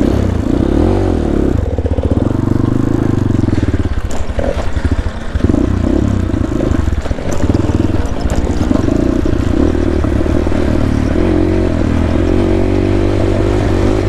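250cc single-cylinder four-stroke engine of a GPX Moto FSE 250 dirt bike under way on a trail, its pitch rising and falling as the throttle is opened and eased off. The engine drops back briefly a couple of times near the middle.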